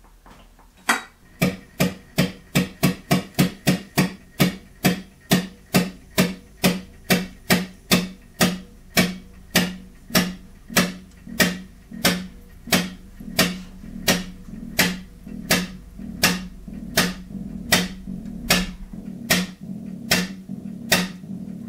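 Hydraulic pump of a torque-test rig being worked by hand, a sharp metallic clack on each stroke, about four a second at first and slowing to under two a second as the pressure climbs and the load on the wrench rises.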